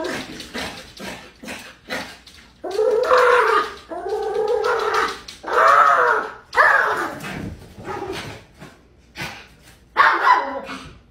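Small fluffy dog barking and whining in a run of drawn-out calls, several close to a second long, each rising and then falling in pitch, with shorter yips in between.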